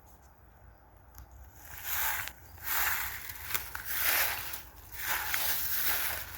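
Irregular bursts of rustling and crunching with a few sharp clicks, starting after a quiet first second and a half.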